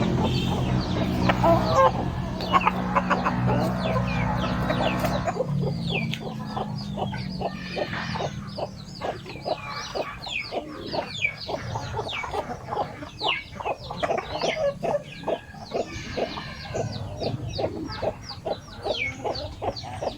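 A flock of gamefowl chickens clucking: many short calls, several a second, overlapping in a busy chatter. For the first five seconds a steady low hum lies under the calls, then drops away.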